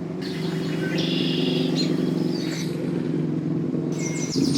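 An engine idling steadily with a low, even hum, while birds chirp over it in two spells: through the first half and again near the end.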